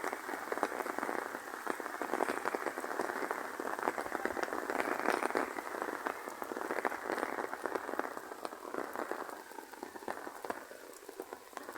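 Steady rain falling, a dense patter of many separate drops hitting a surface, a little quieter near the end.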